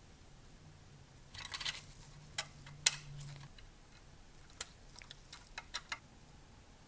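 Small plastic parts of a scale model car handled in gloved hands: a brief rustle, then one sharp click about three seconds in, followed by a run of lighter clicks near the end as the black plastic front splitter is pressed onto the bumper.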